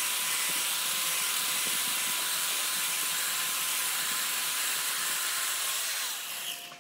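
Corded electric chainsaw ripping lengthwise along a log: a steady motor whine over the loud hiss of the chain cutting wood. About six seconds in the motor winds down, its pitch falling, and the sound drops away.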